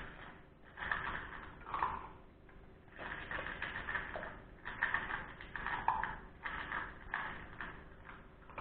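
A Russian-European Laika puppy eating dry kibble from a metal bowl: irregular spells of crunching and clicking, with short pauses between them.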